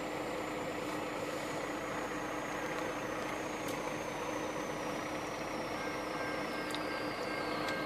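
Freight train rolling along the tracks: a steady rumble with a thin, high whine that slowly falls in pitch, and a few faint clicks.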